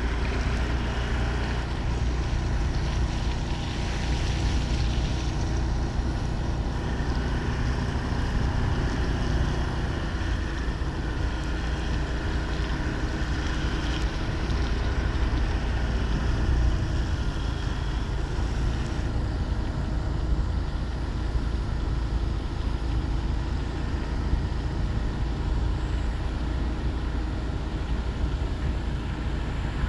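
Steady rumble of a vehicle on the move: engine and road noise, even throughout.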